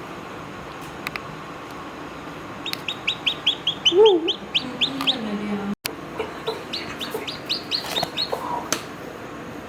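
Newly hatched chicks peeping in quick runs of short, high cheeps, with a broody hen giving a lower call that rises and falls about four seconds in.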